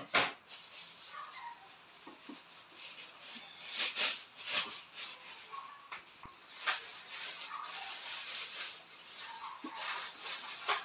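A spoon scraping and tapping in a metal mesh sieve over a stainless steel bowl as flour is sifted, giving a handful of sharp clicks and clinks, the loudest just after the start.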